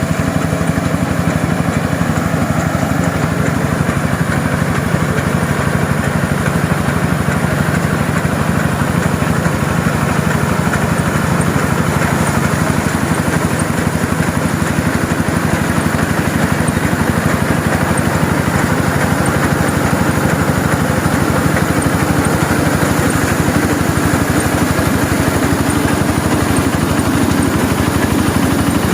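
Engine of a QUICK QH 11 mini rice harvester running steadily.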